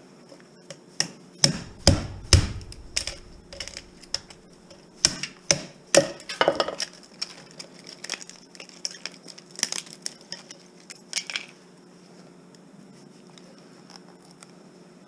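Irregular knocks, clanks and clinks of metal parts and tools being handled while a television set is taken apart, the heaviest thuds a second or two in, thinning out and stopping about eleven seconds in.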